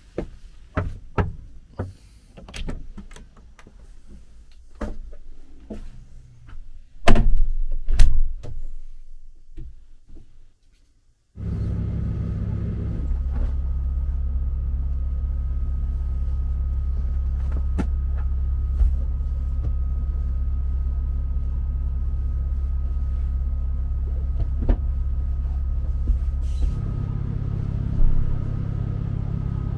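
Scattered knocks and bumps aboard a small boat, with two loud bangs about seven and eight seconds in. After a brief silence, a steady low machine hum with a faint high tone starts abruptly and keeps on.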